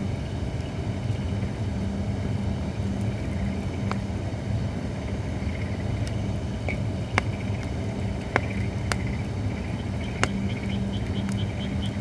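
Holly firewood burning in a campfire, crackling with a few sharp pops over a steady low background hum. Near the end a fast series of short high chirps starts up.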